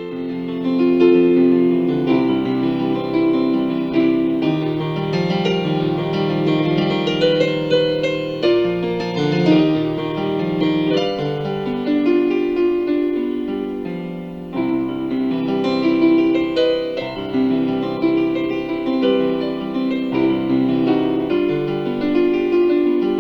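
Intro music: piano or electric keyboard playing a melody over sustained chords.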